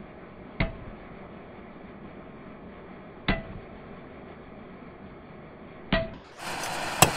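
Club hammer striking a heated 8 mm stainless steel bar on a concrete block to bend its end over: three separate blows about two and a half seconds apart, each a sharp metallic clank with a short ring. Near the end the background gets louder and there is one sharper knock.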